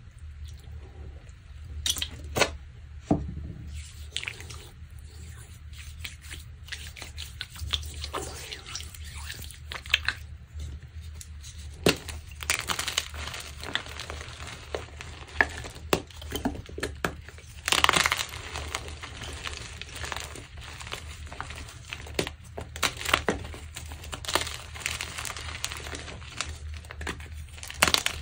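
Pink-dyed gym chalk being crushed, making irregular crunching and crackling that grows denser about halfway through, with one loud crunch about two-thirds of the way in. A steady low hum sits underneath.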